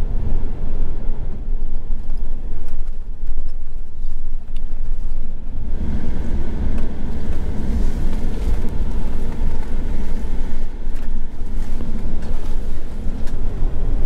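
An RV's engine and tyres heard from inside the cab while driving slowly along a street, a steady low rumble that grows louder about six seconds in.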